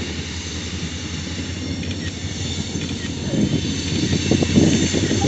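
CSX freight train rolling past with a steady low hum and a rumble of wheels and cars. The rumble grows louder from a little past halfway.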